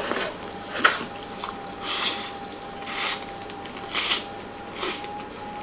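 Close-miked eating sounds from crispy-skinned roast pigeon: six short wet sucking and biting noises, about one a second, over a faint steady high tone.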